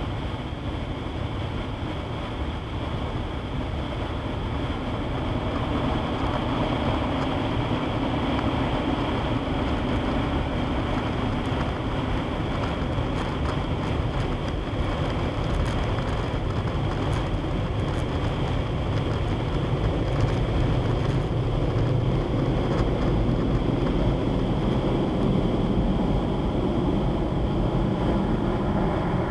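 Steady rushing noise heard from inside a car, with a low vehicle rumble underneath. It grows louder about five seconds in.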